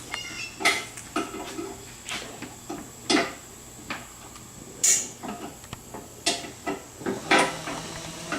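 Irregular metallic clinks and knocks, roughly one a second, from metal booth-frame parts and hardware being handled during disassembly.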